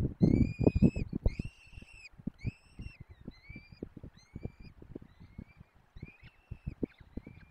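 Downy peregrine falcon chicks begging at feeding time: a run of thin, high cheeping calls, about two a second at first, growing fainter and sparser after the first couple of seconds. Underneath are irregular soft knocks and rustles, loudest in the first second or so.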